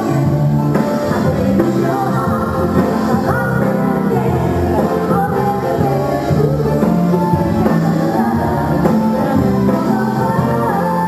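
Live band playing a cabaret-style arrangement of a pop song, with a woman singing over it.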